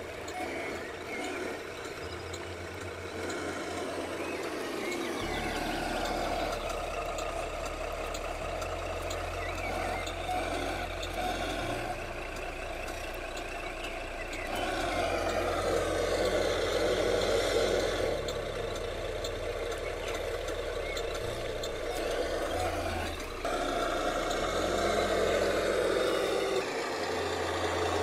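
Tamiya RC dump truck driving, its electric drive giving a whine that rises and falls with the throttle over a steady low truck-engine sound that steps up and down in pitch.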